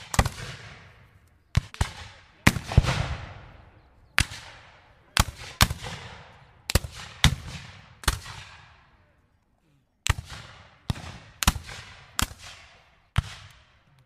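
Scattered rifle-musket fire: about twenty single shots at irregular intervals, sometimes two or three in quick succession, each followed by a long echoing tail, with a break of about two seconds in the middle.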